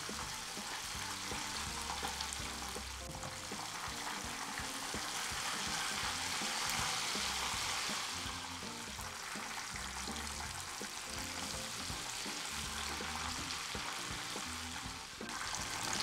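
Breaded chicken livers frying in a pan of oil that is hot but not very hot, a steady crackling sizzle that swells a little in the middle. Soft background music plays underneath.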